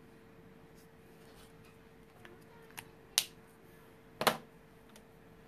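A few sharp clicks from Copic alcohol markers being handled while switching colours: a faint one a little under three seconds in, a loud one just after, and a loud double click about a second later. A faint steady hum lies underneath.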